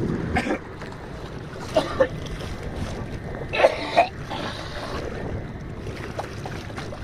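Wind buffeting the microphone over open water, with a few short louder bursts about two seconds and four seconds in.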